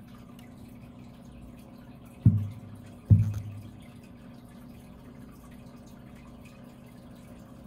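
Two dull low knocks, a little under a second apart, over a steady low hum.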